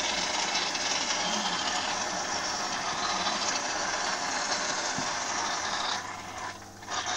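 Sunsun JP-024F internal aquarium filter running: a steady low hum under a loud, even rushing hiss of pumped water. The hiss dips for about a second near the end while a hand works at the filter, then comes back.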